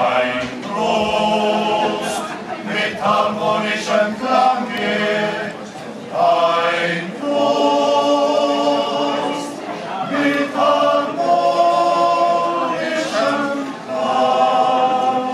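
A group of men singing together unaccompanied, in harmony, in phrases of held chords with short breaks between them.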